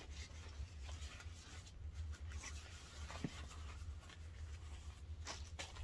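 Soft rustling and crinkling of plastic packaging being handled, with a few sharper crinkles near the end, over a faint steady low hum.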